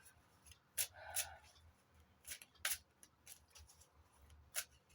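Tarot cards being handled and laid down: about four sharp card clicks, with a brief soft rustle of a card sliding about a second in.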